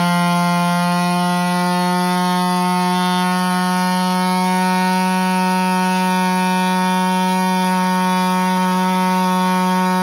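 Handheld power cutting tool running at a steady, high-pitched whine as it cuts through a car's rear bumper cover.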